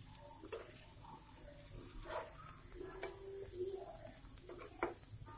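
Faint sizzling of rice-flour-coated fish steaks shallow-frying in a little oil on a nonstick pan, with a few light clicks of a spatula against the pan as the pieces are turned.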